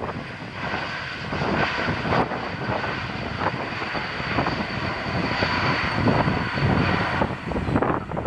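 Airliner engines running with a loud rushing noise and a steady high whine, with wind buffeting the microphone in uneven gusts.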